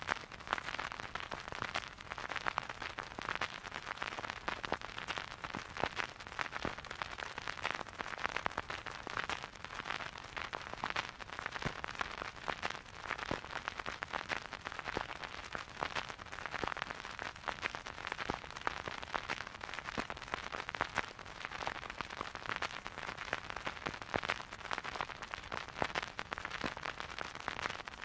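Vinyl record surface noise from the stylus riding in the groove: a steady crackle of dense small pops and clicks over a soft hiss, with no music.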